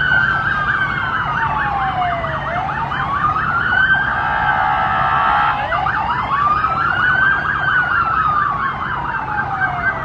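Emergency vehicle sirens: a slow wail rising and falling over about five seconds, overlaid with a fast warbling yelp, and a steady horn-like blast for about a second and a half near the middle. A steady low engine hum runs underneath.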